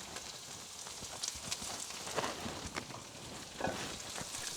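Ginger and green chili frying in sesame oil in a pan, a faint sizzle under a spatula stirring and knocking against the pan in irregular clicks.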